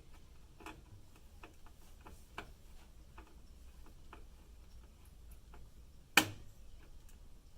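Irregular small metallic clicks and taps from a screwdriver driving motherboard screws into the case standoffs, with one sharp, louder click about six seconds in.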